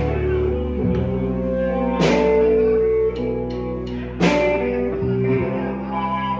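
Live band playing a slow number: an electric guitar holds long sustained notes over a steady bass line, with a cymbal crash about two seconds in and again about four seconds in.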